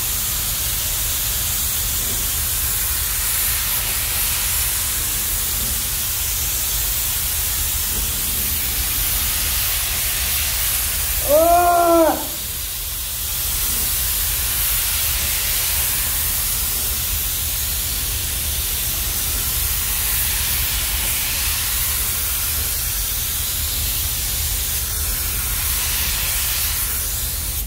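Gravity-feed compressed-air spray guns hissing steadily as they atomise paint, over a steady low hum. About halfway through, a brief pitched sound rises and falls above the hiss.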